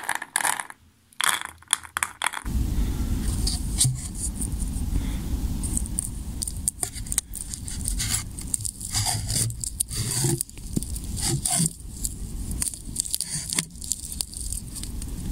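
Small firework stars clicking and clattering as they drop into paper shell hemispheres. After about two seconds this gives way to a steady low background noise with scrapes and knocks, as a paper ball shell is lowered into a cardboard mortar tube.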